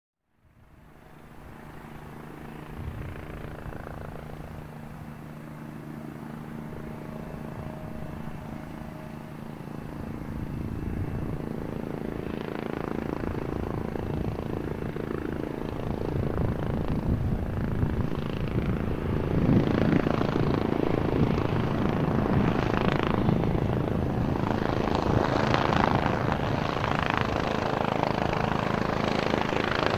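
AgustaWestland AW109SP GrandNew twin-turbine helicopter approaching, its rotor and engine sound growing steadily louder as it nears. Low steady tones give way to heavier rotor noise in the second half.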